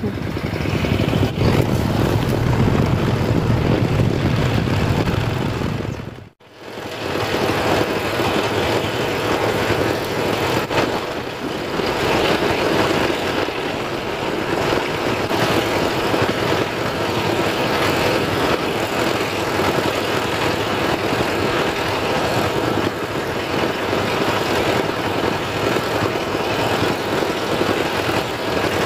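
Diesel engine running steadily, a continuous drone that briefly cuts out about six seconds in.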